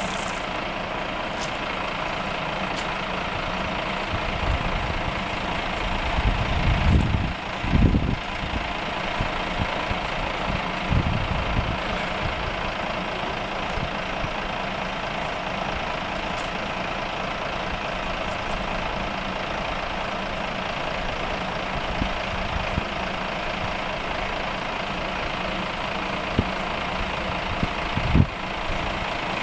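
Fire-brigade engine running at a steady speed, with low rumbles about six to eight seconds in and a sharp knock near the end.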